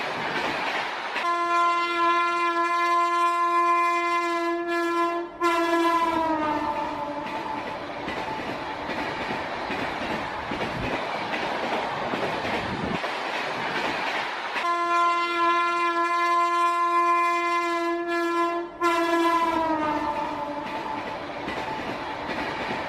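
Train horn sounding a long single-note blast that then slides down in pitch as the train passes, over the steady rumble and clickety-clack of the moving train. The same blast and falling tail come again about fourteen seconds later.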